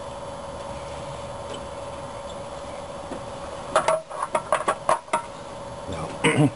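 Metal valve cover being set down onto the engine's cylinder head and worked into place: a quick run of metallic clanks and taps about four seconds in, then another brief clatter near the end.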